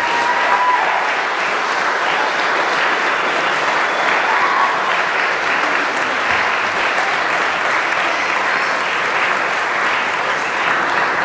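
A congregation applauding steadily after the wedding kiss.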